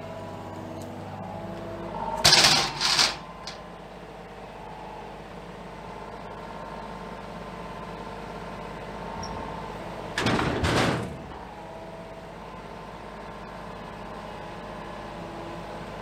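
Kubota KX033-4 mini excavator's diesel engine running steadily with its hydraulics working, while sawmill slabs are loaded into a dump trailer. Twice there is a loud wooden clatter, a double crash about two seconds in and another about ten seconds in, as slabs are dropped into the trailer.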